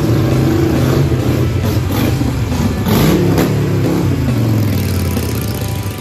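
Harley-Davidson V-twin cruiser motorcycles pulling away one after another and passing close by, their loud exhaust rising and falling in pitch as the riders rev up, most strongly around the middle.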